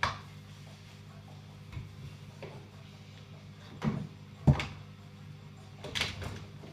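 Low steady hum of aquarium equipment with a few scattered clicks and knocks, the loudest about four and a half seconds in.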